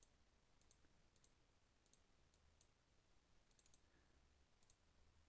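Faint computer-mouse clicks at irregular intervals over near silence, placing points and selecting objects in CAD software.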